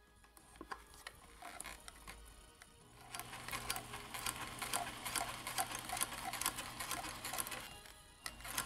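Janome Combi DX 502 serger stitching a rolled hem: a motor hum under rapid, even ticking from the needle and loopers. It starts up about three seconds in and runs for about five seconds before easing off near the end.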